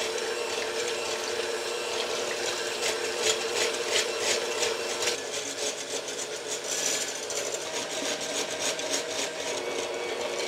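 Electric mixer with a whisk attachment running steadily, whipping heavy cream in a glass bowl, with frequent sharp clicks over the motor's hum. The cream is thickening toward stiff peaks.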